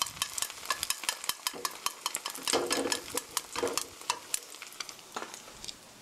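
Beaten eggs sizzling and crackling in hot oil in a nonstick frying pan while wooden chopsticks stir and push them about. The crackle thins out and gets quieter toward the end.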